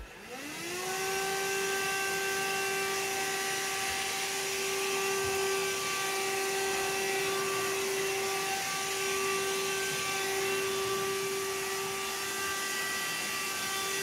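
Vacuum cleaner switched on, its motor rising in pitch up to speed within about a second, then running steadily with an even tone over a rush of air.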